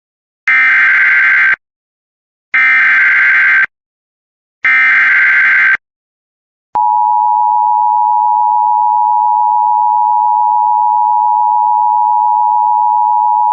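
Emergency Alert System tones opening a new severe thunderstorm warning. First come three harsh data bursts of the SAME header, each about a second long and a second apart. After a pause, the steady two-tone EAS attention signal starts about seven seconds in and holds.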